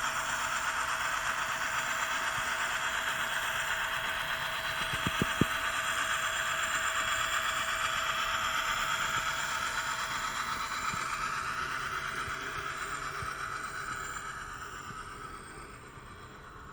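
ESU LokSound sound decoder in an N-scale GP60 model playing the locomotive's diesel engine sound at a high throttle notch through its tiny speaker, mixed with the model's running gear on the track. There are a few clicks about five seconds in, and the sound fades over the last few seconds.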